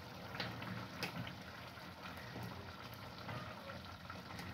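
Faint clinks and knocks of plates and serving utensils as food is dished up, over a low steady background noise.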